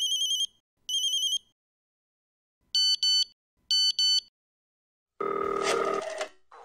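Electronic telephone rings: a warbling trill ring sounds twice, then a different double-pulsed ring sounds twice. About five seconds in, electronic music starts.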